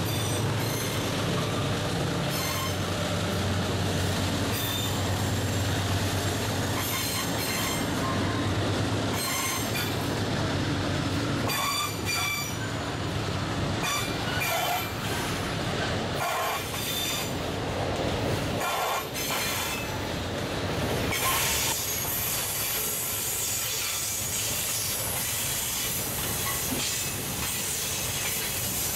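Long freight train of hopper cars rolling past on a curve, the wheels squealing in many short high tones. A low diesel drone from the passing locomotive fades out about a third of the way in, and near the end a steady hiss of rolling cars takes over.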